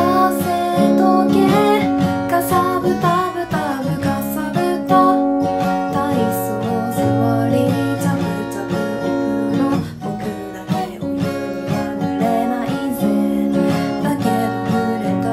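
A woman singing a Japanese pop song in a soft voice while strumming an acoustic guitar.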